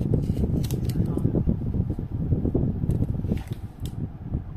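Several sharp plastic clicks and taps as the end of an e-bike lithium battery pack is pried open with a screwdriver, over a steady low background noise.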